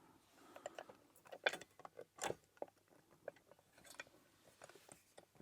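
A rake pick being worked in a lock against its tension tool: faint, irregular metallic clicks and scrapes, with a couple of sharper clicks in the middle.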